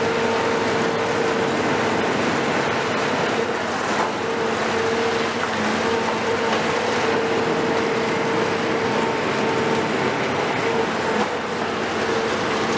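Caterpillar 374F demolition excavator at work, its Cat C15 diesel engine and hydraulics running steadily under load. A whine comes and goes over a constant rush of noise.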